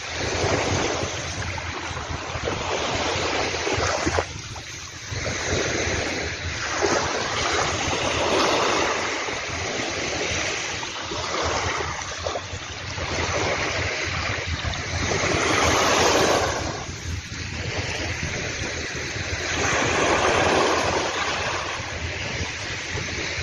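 Sea waves breaking and washing up on a beach, the surf swelling and fading every few seconds.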